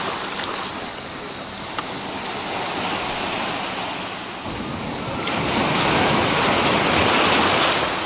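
Small sea waves breaking and washing up over stones and pebbles at the water's edge. A wave rushes in louder about five seconds in.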